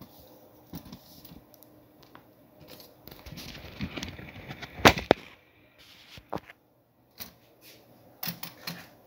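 Handling noise: rustling and a scatter of sharp clicks. The loudest is a pair of clicks close together about five seconds in.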